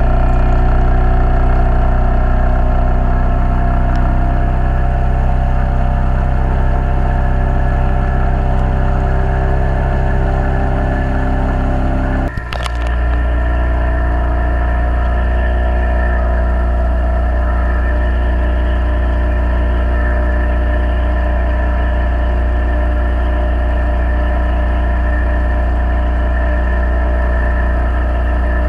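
Outboard motor of a river boat running steadily under way. It breaks off for an instant about twelve seconds in, then runs on.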